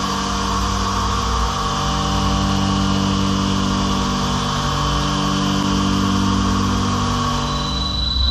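DMG CNC milling machine cutting metal with a solid-carbide end mill: a steady machining hum made of several held tones. It runs evenly, with a slight shift in pitch partway through.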